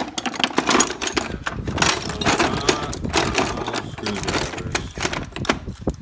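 A hand rummaging through a drawer full of screwdrivers in a metal tool chest: plastic handles and steel shafts clattering and clinking against each other and the drawer in a continuous rattle.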